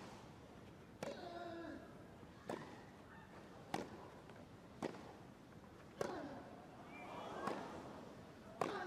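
Tennis rally on a grass court: rackets striking the ball seven times, about one hit every second and a quarter, with a player's grunt after some of the hits.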